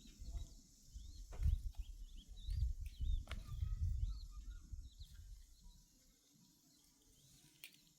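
Small birds chirping, with many short, quick calls throughout, over a low, gusty rumble that dies away after about five seconds.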